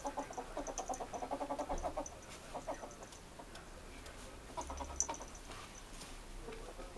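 A young ferret dooking: quick runs of soft clucking chatter, about ten clucks a second, the longest run in the first two seconds, then shorter ones around two and a half and five seconds in. It comes while the ferret wrestles and mounts a plush toy, a sign of hormonal excitement.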